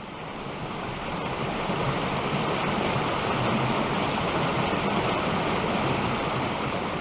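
A small rocky creek rushing and splashing down a cascade: a steady rush of water that fades in over the first second or two.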